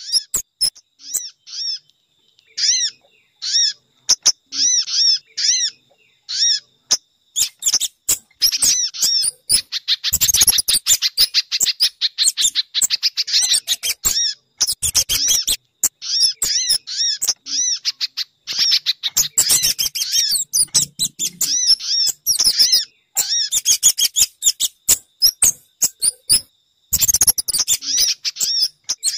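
Recorded bird-lure calls: rapid runs of high, sharp chirps and trills in bursts with short gaps. The track mixes sogon, spiderhunter (pijantung) and kemade calls.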